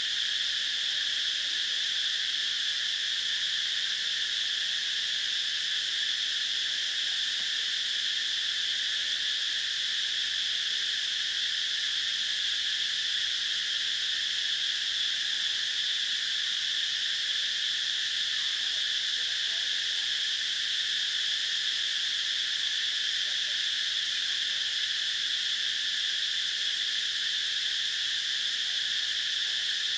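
Dense insect chorus, a steady high-pitched drone that holds the same pitch and level without a break.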